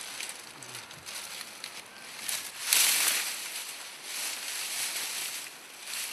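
A bundle of dry maize stalks rustling and crackling as it is carried and thrown down, in several swells, the loudest about three seconds in.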